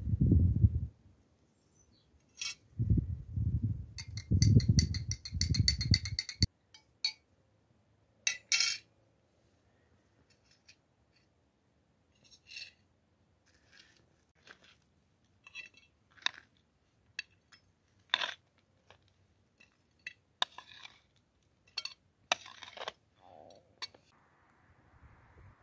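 Plates, a glass and a fork clinking and tapping now and then as food is served onto a plate. In the first six seconds there is a run of louder, low, muffled thumps and rustling.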